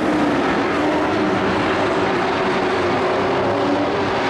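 Several race truck engines running steadily together as they circle the track, a continuous drone with no sharp events.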